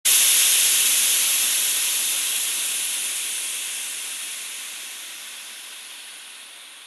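Steam hissing from a pot, a steady high hiss that starts suddenly and slowly fades away.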